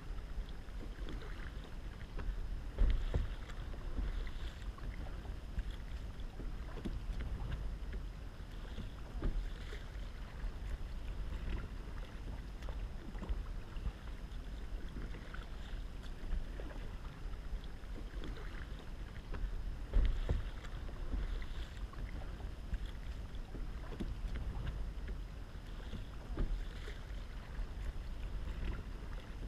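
Kayak paddle strokes splashing and water lapping against a plastic sit-on-top kayak's hull, over a steady low wind rumble on the microphone. Two louder thumps come about 3 s in and about 20 s in.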